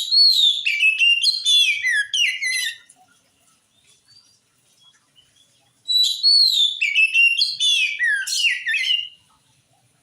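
Oriental magpie-robin (kacer) singing: two phrases of about three seconds each, quick whistled notes that slide down from high to lower, with a pause of about three seconds between them.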